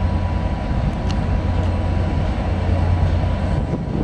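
Ferrosur Roca freight train passing: the diesel locomotive's steady low rumble under the noise of the hopper wagons rolling over the rails.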